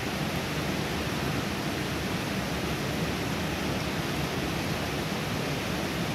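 Steady rush of turbulent flowing water, an even hiss with no breaks.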